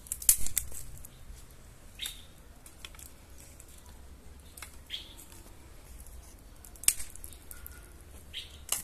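Dry twigs snapping and crackling at a small wood fire as sticks are fed in: a loud cluster of sharp cracks right at the start, then single cracks every second or two, with two more near the end.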